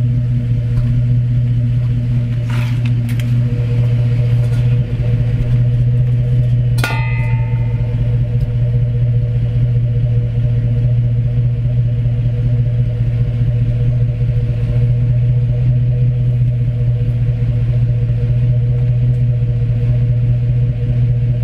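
A 2008 Chevrolet Tahoe's 5.3-litre V8 idles steadily at the open tailpipe, its exhaust running with the resonator cut out and only the Thrush muffler left. About seven seconds in there is a single sharp metallic clink with a brief ring.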